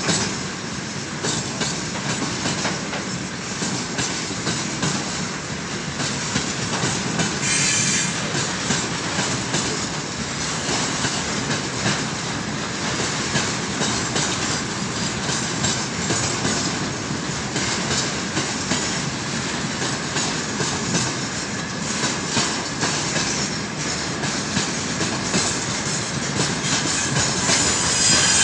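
Heavy tank-car freight train rolling past, its wheels rumbling and clattering over the rail joints, with a brief high squeal about eight seconds in.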